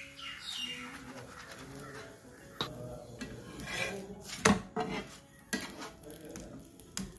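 Metal spatula scraping and clinking against a flat tawa as a stuffed paratha is turned and pressed, with a handful of sharp clinks, the loudest about four and a half seconds in.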